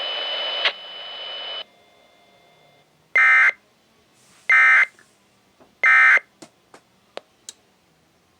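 Emergency Alert System End of Message signal from a Sage EAS ENDEC: three short, loud warbling data bursts about a second and a half apart, marking the close of the alert. Before them a hiss with a steady high tone cuts off suddenly, and a few faint clicks follow.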